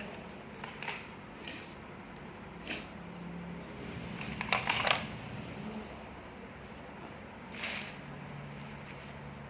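Scattered light clicks, taps and rustles of small tools and parts being handled on a workbench, over a faint low hum; a quick cluster of clicks comes about halfway through and a short hiss near the end.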